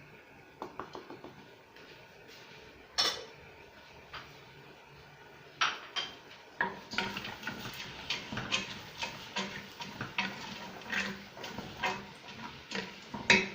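A metal spoon clinking and knocking against a cooking pot: a few scattered knocks, then a run of quick clinks about twice a second through the second half, as ingredients are stirred in the pot.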